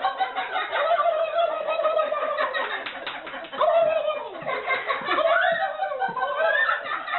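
A man imitating a turkey's gobble in a warbling voice, mixed with laughter.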